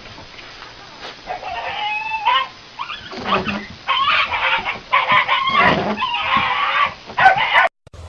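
A run of loud, pitched animal calls, about half a dozen in quick succession, cut off abruptly near the end.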